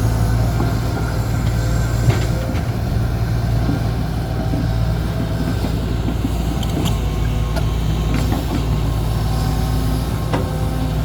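Heavy diesel engines of an excavator and dump truck running steadily, with a few short knocks and clanks. A slightly higher engine note joins in near the end.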